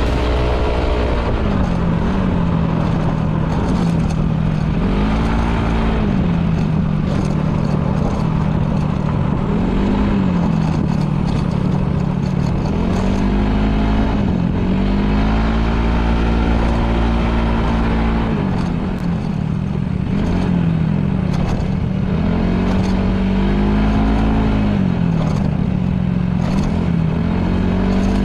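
Yamaha Majesty S scooter's single-cylinder four-stroke engine, heard on the move on a winding mountain road. Its pitch swells up and falls back every few seconds as the throttle opens and closes through the bends, with a longer high stretch a little past halfway.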